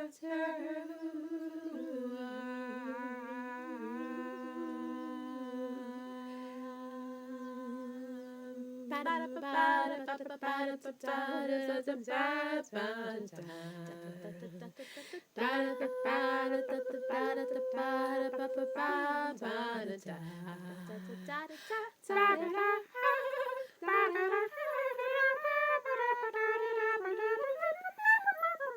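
A lone voice humming and singing without accompaniment. It holds one long note for about the first nine seconds, then carries a wandering melody with short breaks.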